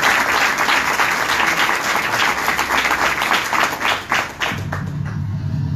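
A small indoor audience applauding with many hands clapping at once. The clapping dies away about four and a half seconds in, and a low steady hum comes in.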